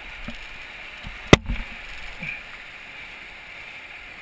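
Whitewater rapids rushing steadily around an inflatable paddle raft, with one sharp knock about a second and a half in and a few fainter knocks around it.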